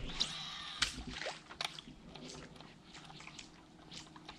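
Light water sloshing and splashing, with a burst of hiss in the first second and scattered small clicks and ticks after it.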